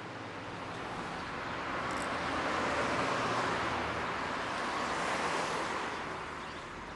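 Road traffic noise: a hiss of passing vehicles that swells through the middle and fades toward the end.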